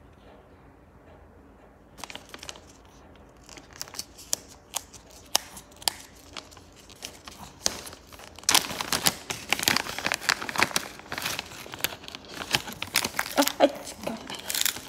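Plastic snack packet of dried smelt treats crinkling and crackling as hands work it open. There are sparse crackles at first, then dense, louder crinkling from about halfway through.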